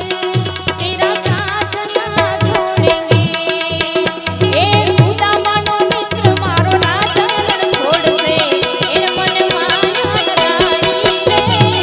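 Gujarati lok dayro folk music: tabla playing a steady run of strokes under held instrumental notes, with a voice singing.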